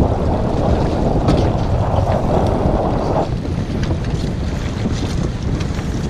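Wind buffeting the camera microphone with a low rumble, and water rushing along the hull of a Diam 24 trimaran under sail in choppy water. A louder rushing hiss runs for about the first three seconds, then stops suddenly.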